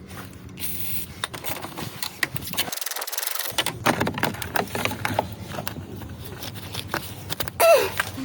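Scattered clicks, knocks and scrapes of hand work on a car's front end, with tools and plastic bumper parts being handled. A short spoken exclamation near the end.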